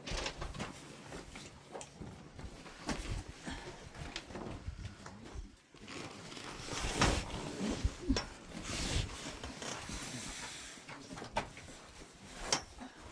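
Irregular knocks, scrapes and rustling, as of things being handled and moved, with no steady rhythm.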